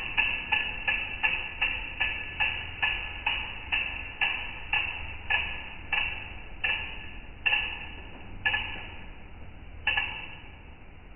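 A hand-spun wheel on a new Hercules Top Gear A26 R1 mountain bike coasting down, with a short metallic ping once per turn, typical of the disc brake rotor catching its pads. The pings start about three a second and slow steadily to about one every second and a half, the last coming near ten seconds in.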